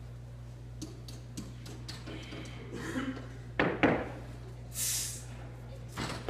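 Steady low hum, with a few faint clicks. Short loud bursts of voice come about three and a half seconds in, then a sharp hiss, then another loud burst near the end as a 118 kg barbell is pulled from the platform in a snatch.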